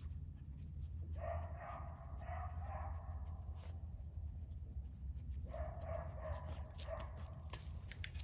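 A dog vocalizing faintly in two runs of about two seconds each, over a steady low rumble.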